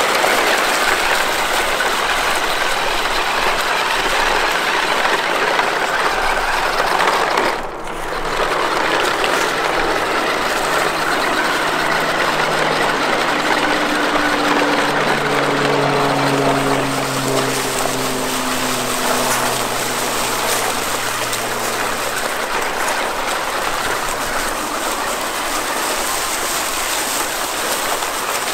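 Traxxas TRX-4 RC crawler towing two other RC trucks over dry leaf litter: a steady crunch and rustle of tyres on leaves and twigs. A low electric motor whine comes through in the middle stretch, and the sound breaks briefly about eight seconds in.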